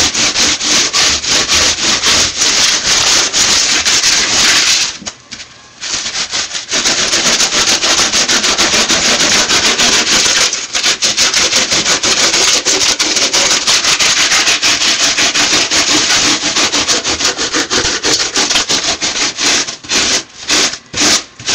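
Hand rasp scraping Styrofoam in rapid, continuous strokes, a harsh scratching hiss. It pauses for about a second around five seconds in and breaks off briefly a few times near the end.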